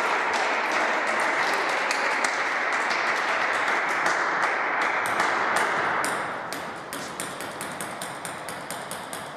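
Spectators applauding a won point in a table tennis match: a dense patter of clapping that thins out about six seconds in, leaving separate sharp clicks.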